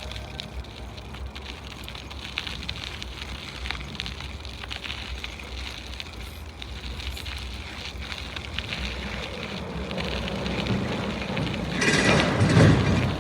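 Bicycle riding on a trail: a steady rush of tyre noise and wind on the microphone, with many small crackles. It grows louder about ten seconds in and peaks in a loud rush near the end.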